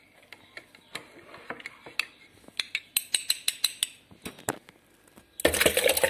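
Ceramic mug and glass blender jug knocking and clinking as they are handled, a run of sharp irregular clicks. About five seconds in, a sudden much louder rattling clatter begins.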